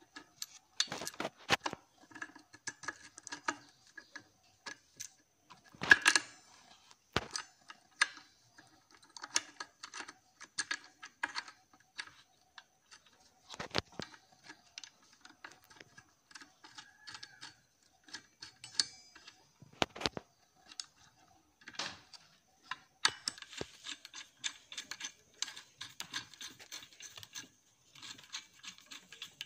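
Irregular small metal clicks and clinks of a brush cutter's clutch shoes, spring and fittings being handled and seated by hand, with one louder knock about six seconds in. The clicking grows busier near the end.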